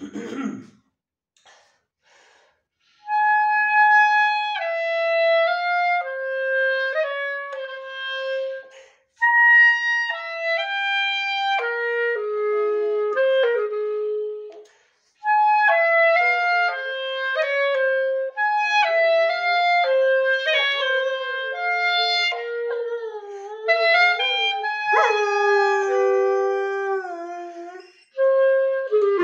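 Clarinet playing a melody in phrases of held notes, with short breaks between them. Near the end a dog howls along, its voice sliding up and down under the notes.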